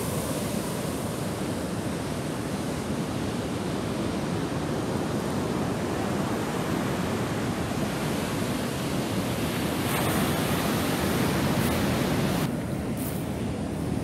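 Ocean surf breaking and washing up a sand beach: a steady rush of waves that thins out a little near the end.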